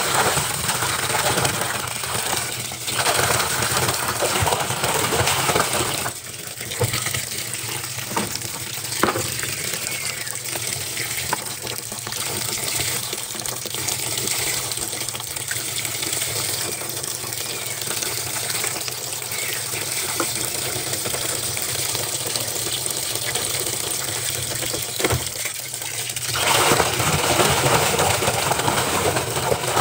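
Water gushing steadily from a top-loading washing machine's fill into the drum, splashing onto a soapy load of clothes. It is louder at first, drops back after about six seconds with a few small clicks, and swells again near the end.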